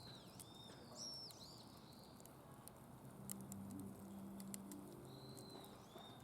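Wood fire burning in a fire pit, crackling faintly with scattered sharp pops, and a few short high whistling chirps in the first second and a half and again near the end.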